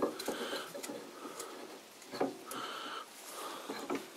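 A steel spindle is being screwed by hand into a freshly cut thread in a workpiece held in a lathe chuck. Metal rubs on metal in short scraping turns, with a sharp click at the start and another about two seconds in.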